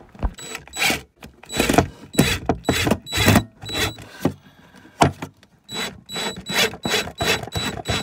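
Drill with a DeWalt right-angle attachment driving a screw into the wooden drawer frame, run in many short stop-start bursts of the trigger, each with a high motor whine, and a brief pause in the middle.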